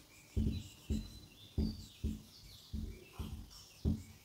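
Birds chirping faintly in the background, with soft low thuds about twice a second.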